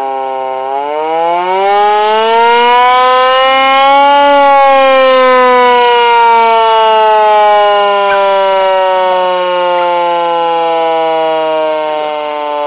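Hand-cranked air-raid siren wailing. Its pitch rises for about three seconds, then slowly sinks as the rotor winds down.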